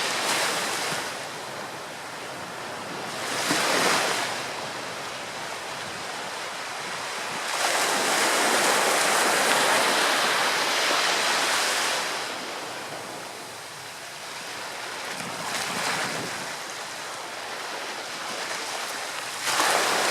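Ocean surf breaking and washing up the shore in repeated swells, the longest and loudest surge lasting about four seconds in the middle, with smaller breaks before and after.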